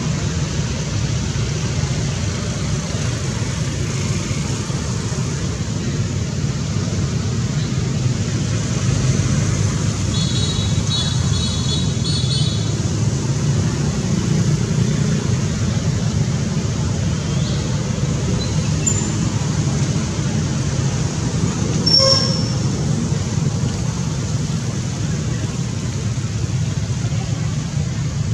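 Steady low rumble of road traffic. About ten seconds in comes a brief run of high, evenly repeated chirps, and a little past twenty seconds a single sharp click.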